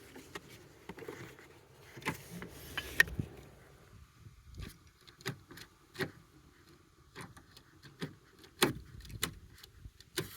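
Scattered light clicks and knocks at irregular intervals, from small objects being handled.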